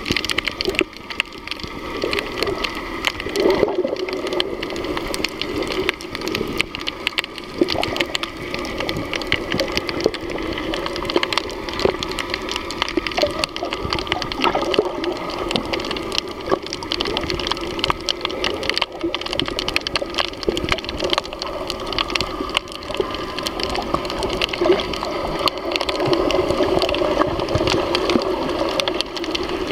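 Underwater ambience picked up by a submerged camera: a steady muffled water rush with dense, fine crackling clicks throughout.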